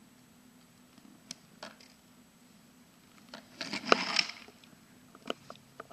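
Camera handling noise: a few light clicks and a brief rustle about four seconds in as the camera is pushed close to the toy, over a faint steady low hum.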